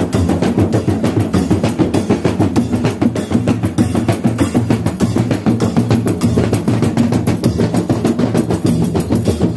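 A group of rawana, the large Mandar rebana frame drums, beaten by hand together in a fast, dense, steady rhythm.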